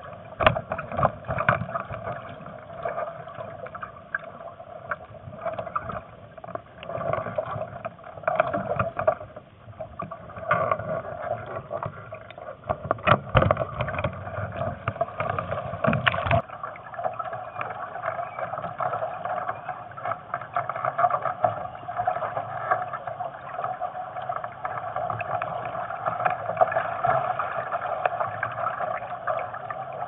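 Water splashing and slapping against the hull of a Bladerider Moth sailing dinghy under way, in uneven gusts of spray, with wind and water rushing past. About halfway through the splashing and slapping stop and only a steadier rush of water and wind remains, the sign of the hull lifting clear of the water onto its hydrofoils.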